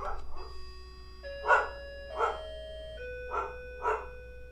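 A dog barks four times, in two pairs, over slow held electronic notes that change pitch twice.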